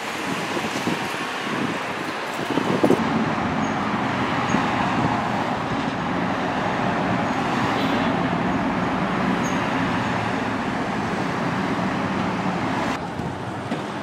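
Steady street traffic noise, with car engines and tyres and a brief louder swell about three seconds in.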